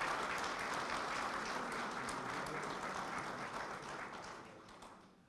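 Audience applauding steadily, dying away over the last second or so.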